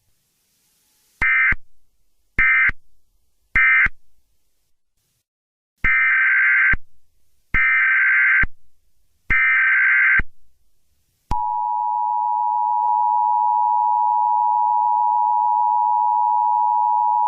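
Emergency Alert System signal: three short buzzy data bursts about a second apart (the SAME end-of-message code), then three longer bursts (the SAME header of a new alert). About eleven seconds in, the steady two-tone EAS attention signal begins and holds.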